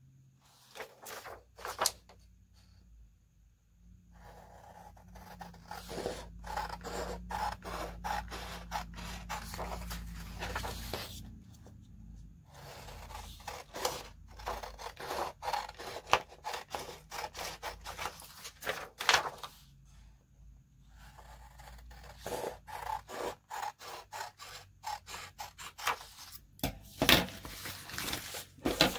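Sheets of paper being handled on a wooden table: rustling, sliding and rubbing against each other in runs of short scrapes and clicks, with brief quiet pauses.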